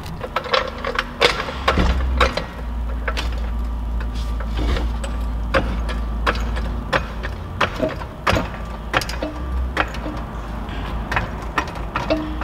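Irregular metallic clicks and knocks of hand tools working on a VW Beetle's rear suspension, over a low steady hum.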